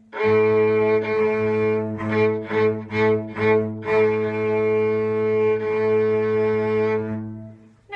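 Cello and violin bowing the note A together an octave apart, as in a beginner string exercise: one long note, about five short detached notes, then a long held note that stops shortly before the end.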